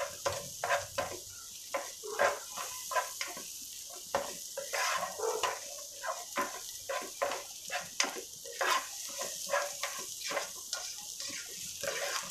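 Spatula stirring and scraping scrambled egg around a nonstick pan, a string of irregular scrapes and light taps over a steady faint frying sizzle.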